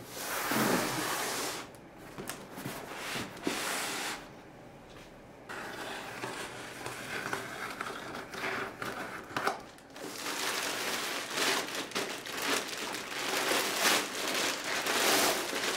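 Unboxing sounds: a cardboard shipping box being slit along its packing tape with a box cutter and opened, then the clear plastic sleeve around a tripod bag crinkling as it is handled. The crinkling becomes dense and continuous for the last several seconds.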